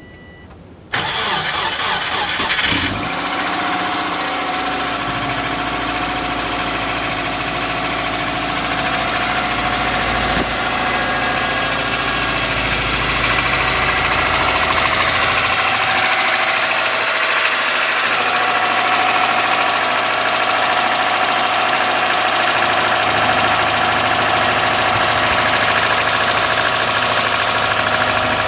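2003 Subaru Forester's flat-four engine cranking for about two seconds, catching, and settling into a steady cold idle. A tick from the driver side of the engine runs with the idle: excessive exhaust valve clearance on the front cylinder, about .029 in instead of roughly .010.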